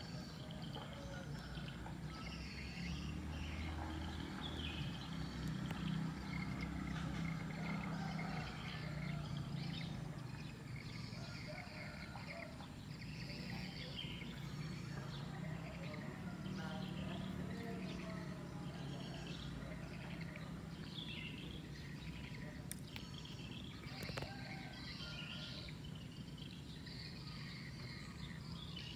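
Outdoor ambience: small birds chirping throughout over a steady low hum.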